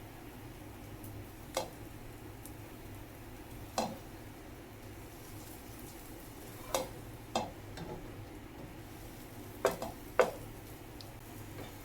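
Egg-dipped bread frying in butter in a pan with a faint steady sizzle, and a utensil knocking against the pan about six times, the last two loudest.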